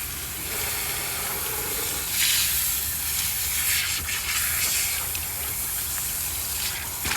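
Pressurised water line hissing and spraying out of a 2-inch blowoff, mixed air and water escaping under pressure. It surges about two seconds in and gets louder again right at the end.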